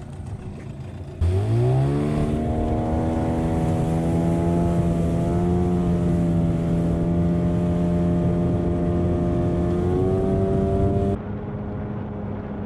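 Boat outboard motor coming in suddenly, revving up quickly in pitch and settling into steady running under way. Near the end it drops to a lower, quieter note.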